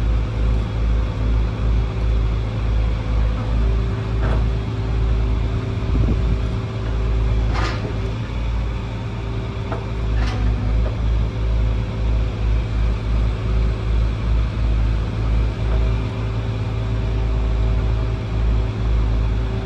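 Excavator's diesel engine running with a low, unevenly throbbing rumble and a faint steady whine. A few short clicks sound about 4, 8 and 10 seconds in.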